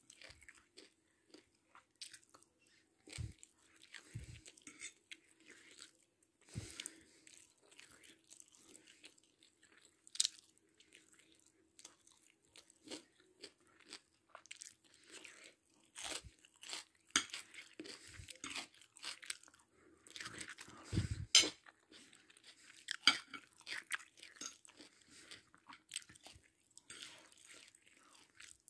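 A person chewing and crunching mouthfuls of chicken biryani close to the microphone, in irregular crunchy bites with a few sharper clicks; the loudest crunches come about three quarters of the way through.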